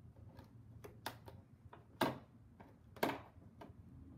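Small plastic toy accessories clicking and tapping against a clear plastic packaging tray as fingers pick them out, in scattered light clicks with two sharper clacks about two and three seconds in.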